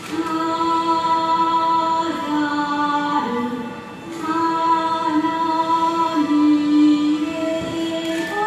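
Slow Shinto ceremonial music accompanying a shrine maidens' dance: long held, wavering notes that step down and slide lower in pitch, with a short lull about four seconds in, over a faint steady high drone.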